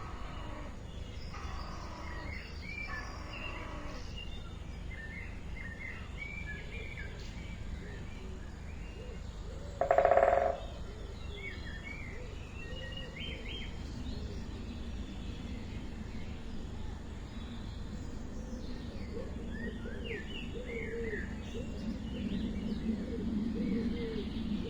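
Small birds chirping in short, scattered notes over a steady background hiss, with one short, louder sound about ten seconds in.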